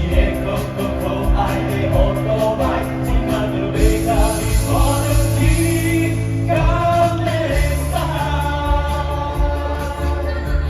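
A song with sung vocals over a backing band with a steady beat. The drums drop out about four seconds in, leaving the voice over a held bass, and come back near the end.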